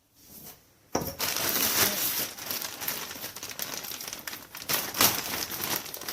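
Packaging crinkling and rustling as it is handled, a dense crackle that starts suddenly about a second in and goes on with many small sharp crackles.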